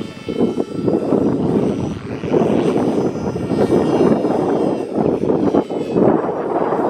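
Strong wind rumbling on the microphone over the thin whine of a 450-size radio-controlled helicopter's electric motor and rotor, rising and falling in pitch as it flies aerobatics.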